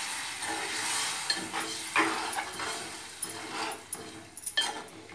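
Steel spoon stirring a watery taro curry in an aluminium pot: about nine short scrapes and clinks of metal on metal, each with a wet slosh of the chunks, right after the water has been added. A hiss fades out in the first half-second.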